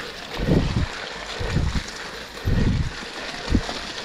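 Mountain bike riding over a muddy trail: a steady rushing hiss of wind and tyre noise, broken by four low thumps about a second apart.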